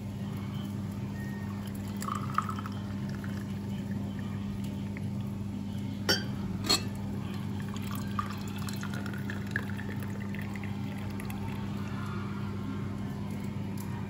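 Brewed tea poured through a small mesh strainer into tulip-shaped Turkish tea glasses, a trickle of liquid filling the glass. Two sharp glass clinks come about halfway through, over a steady low hum.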